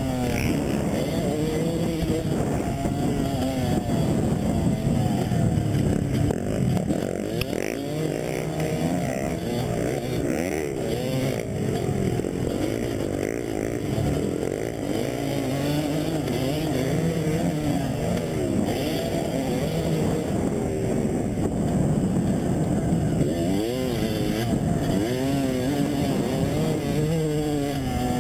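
Several motocross dirt bikes running at once, their engines revving up and dropping back over and over as they accelerate and brake, the pitches overlapping and shifting throughout.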